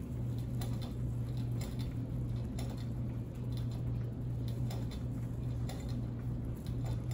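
Guinea pigs chewing and rustling hay: a run of small, irregular crunching ticks over a steady low hum.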